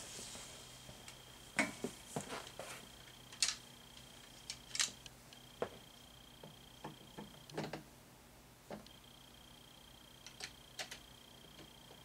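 Scattered light clicks and taps of statue parts being handled and pushed together, irregular and short, over a faint steady high-pitched tone that breaks off and returns.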